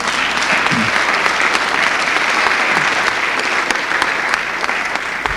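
Applause from a room of legislators, many people clapping at once in a dense, sustained patter.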